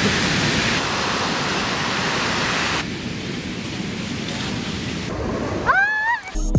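Steady noise of ocean surf breaking on a sandy beach. Near the end a woman gives one rising shriek as a wave splashes over her.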